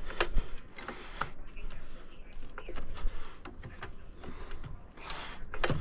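Scattered light clicks and knocks from tools and lug nuts being handled at a car wheel during a tire change.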